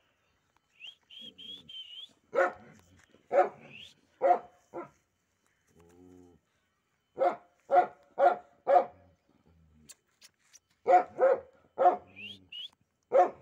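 A dog barking in three bursts of about four short barks each, the middle burst quick and evenly spaced about half a second apart.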